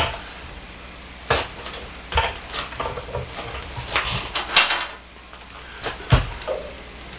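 Metal tools and small hardware clinking and knocking as they are handled and moved about on a workbench, with a heavier thump about six seconds in.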